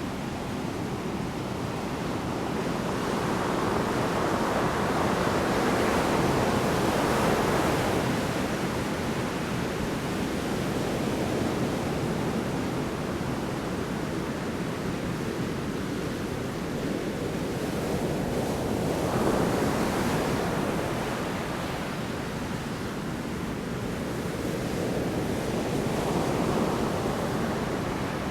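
Large storm waves breaking on the shore in continuous surf. The wash swells three times, loudest about a quarter of the way in, again past the middle, and near the end.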